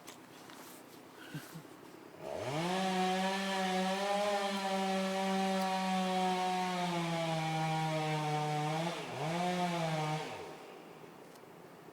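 Two-stroke chainsaw revving up about two seconds in and running at full throttle in a felling cut for about eight seconds, its pitch sagging slightly under load; near the end it eases off, revs once more, then drops back to idle.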